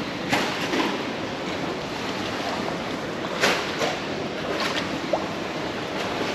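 Steady rushing background noise with a few sharp clicks and knocks scattered through it, the loudest about three and a half seconds in.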